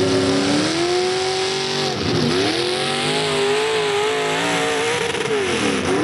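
Modified pulling tractor's engine running hard under load as it drags the sled down the dirt track. Its pitch holds high, then twice drops sharply and climbs back, about two seconds in and again near the end.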